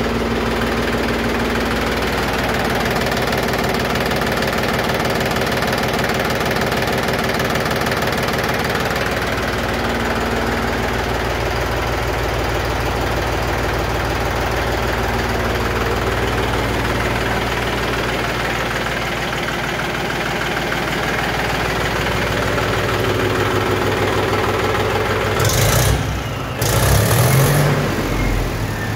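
Mahindra 265 DI tractor's three-cylinder diesel engine idling steadily after starting. Near the end it gets louder and rises in pitch, revved up a few times.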